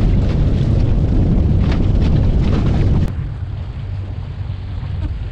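Heavy wind buffeting the microphone over a boat's motor running, a loud low rumble that drops off abruptly about three seconds in, leaving the motor under lighter wind.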